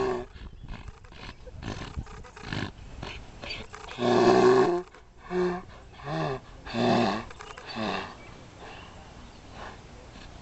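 Donkey braying: a series of calls, the longest and loudest about four seconds in, followed by several shorter ones, dying away after about eight seconds.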